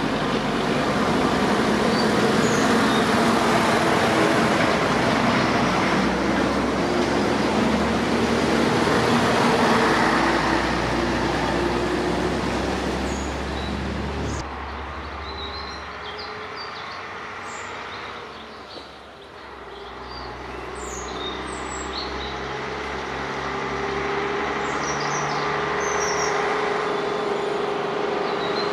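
Vintage Scania-Vabis trucks' diesel engines driving past. One truck's engine runs loudly and drops away abruptly about halfway. Then another truck's engine grows steadily louder as it approaches, with faint high chirps in the lull between them.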